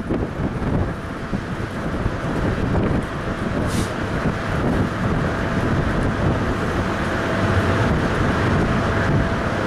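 Wind buffeting the microphone over a steady low rumble from a MARC commuter train standing alongside.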